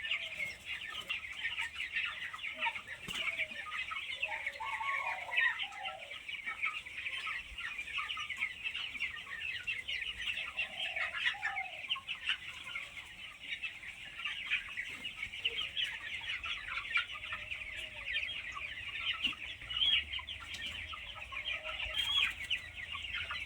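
A flock of chickens calling continuously: a dense chatter of many short, high calls, with a few lower calls about five and eleven seconds in.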